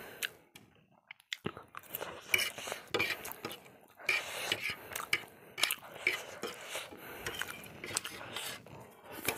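A metal fork clinking and scraping on a ceramic plate as noodles are gathered, with chewing heard close on a clip-on microphone, in a string of short sharp clicks.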